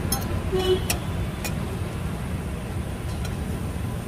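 Steady low rumble of a roadside food stall with street traffic, around a wok of water boiling on a gas burner. A few sharp clicks come in the first second and a half.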